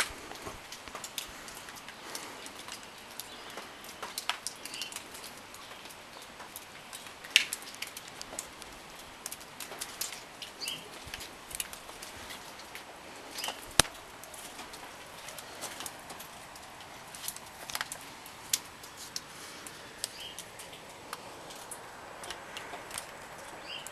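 Outdoor ambience: a steady hiss with scattered, irregular ticks and taps, and a few faint, short bird chirps.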